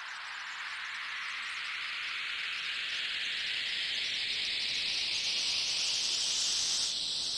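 Electronic dance-music white-noise riser: a synthesized hiss with a filter sweeping upward, growing steadily brighter and louder, typical of a build-up before the drop.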